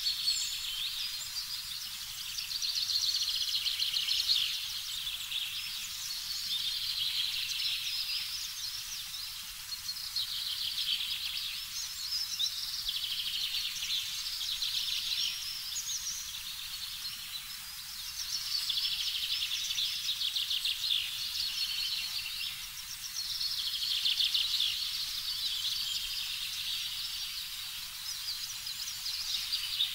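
A dense chorus of small birds chirping and twittering, swelling and fading in waves every few seconds.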